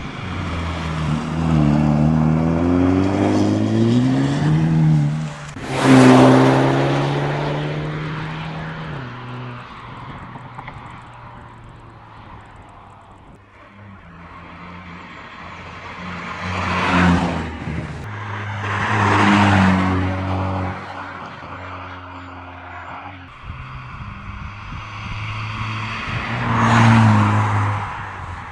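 Hyundai i30 N Fastback's 2.0-litre turbocharged four-cylinder engine revving under acceleration, its pitch climbing over the first few seconds, then a loud surge about six seconds in. Three more loud engine swells follow later.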